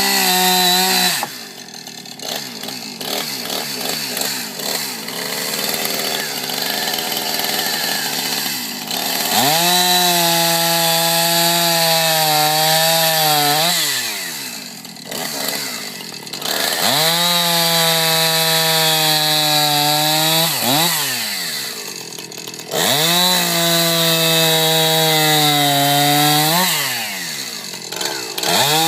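Two-stroke chainsaw running at full throttle, its pitch dropping and climbing back several times as the throttle is let off and squeezed again. It runs lower and rougher for several seconds near the start, while cutting through a log.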